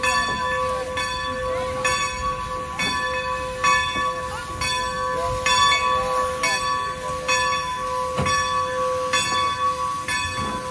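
Bell of Strasburg Rail Road No. 90, a Baldwin 2-10-0 steam locomotive, ringing steadily at a little over one stroke a second as the engine moves up to couple onto its train, with steam hissing beneath.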